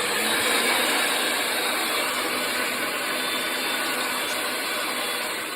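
Electric pipe-threading machine running steadily while cutting threads on the end of a 2-inch steel pipe, easing off slightly near the end.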